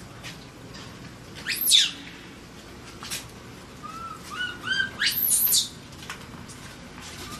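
Baby macaque's distress cries: a shrill high scream about a second and a half in, a few short rising-and-falling squeaks around four seconds, then a longer shrill scream at about five seconds.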